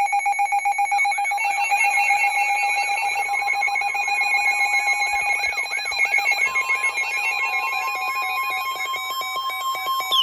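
Emergency alert attention tone: a loud electronic alarm of several steady tones pulsing rapidly, with a warbling chirp repeating over it. A further steady tone joins about halfway through, and it ends with a short falling chirp. It heralds a severe thunderstorm warning.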